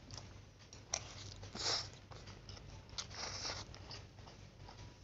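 Close-up eating of fried instant noodles: mouth sounds of chewing, a sharp click about a second in, and two louder hissy sounds of about half a second, just under two seconds and around three seconds in.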